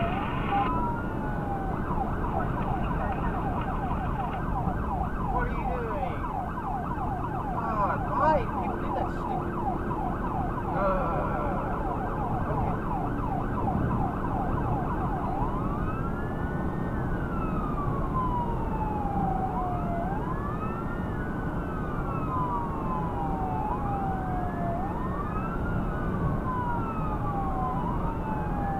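Electronic emergency siren on a responding vehicle, heard from inside it. It sounds a fast yelp for about the first half, then switches to a slow rising and falling wail, over the steady road noise of the moving vehicle.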